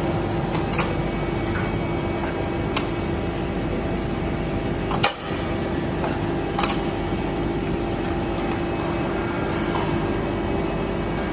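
Cylindrical grinding machine running steadily with a constant hum, broken by a few sharp clicks, the loudest about five seconds in.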